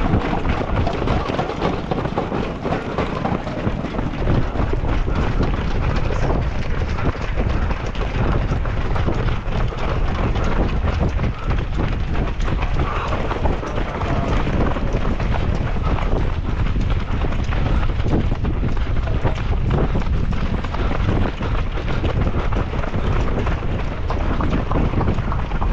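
Strong wind buffeting the microphone of a camera carried by a running marathon runner, a steady loud rumble.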